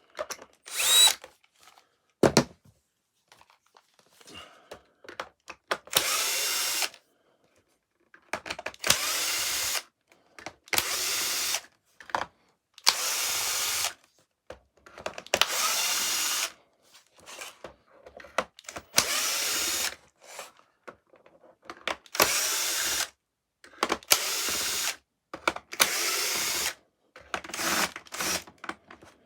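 Power drill with a screwdriver bit running in about ten short bursts of a second or so each, backing screws out of a vacuum cleaner's plastic floor head, with small clicks and knocks between the bursts as the screws and housing are handled.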